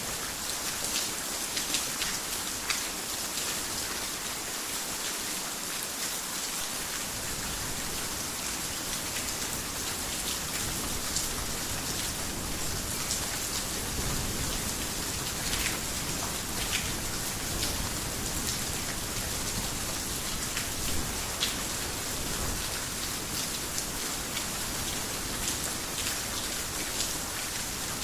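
Heavy rain falling steadily on a roof: a dense, even hiss scattered with sharper individual drop impacts. A low rumble joins underneath about seven seconds in.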